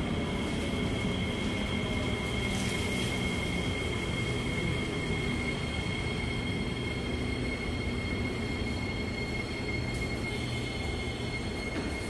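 Singapore MRT train running past with a steady rumble, and a steady high-pitched tone held over it throughout.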